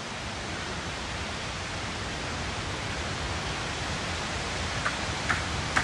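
Steady, even rushing noise, with a few faint clicks near the end.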